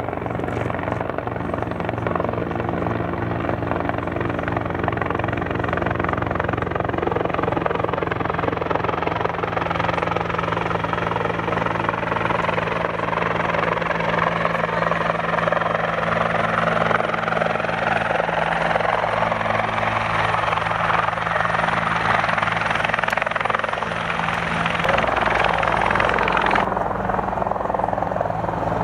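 Bell 412 twin-turbine helicopter flying low and close with a water bucket slung beneath: a steady rotor beat under a turbine whine that swells as it comes nearer. Near the end the higher hiss drops away abruptly, leaving the low rotor sound.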